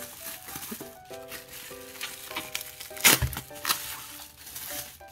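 Bubble wrap and a plastic bag crinkling as hands unwrap a stack of photos, with the loudest rustle about three seconds in. Background music plays throughout.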